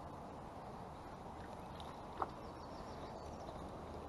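Faint steady outdoor background hiss with a few faint bird chirps, and one brief sharp sound about two seconds in.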